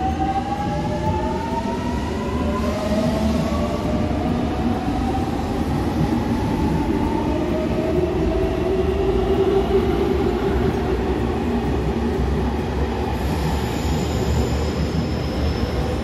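Electric train accelerating over a steady rail rumble, its motor whine made of several tones that rise slowly in pitch.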